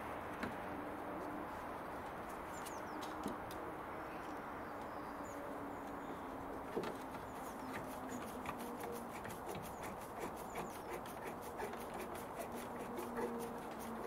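Screwdriver clicking in quick, uneven runs from about halfway through, as a replacement speaker is screwed into a Mercedes CLK's inner door panel, over a steady background hiss.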